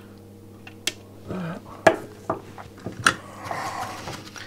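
Flush side cutters snipping off excess component leads on a perfboard: a few sharp clicks about a second apart, the loudest about two and three seconds in.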